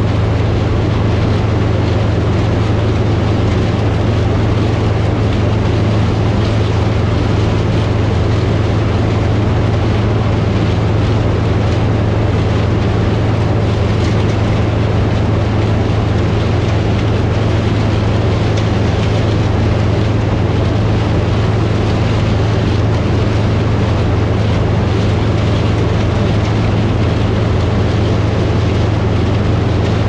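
New Idea Uni harvester with its six-row corn picker head, running steadily under load while picking ear corn. It makes a constant low engine drone with machinery noise over it.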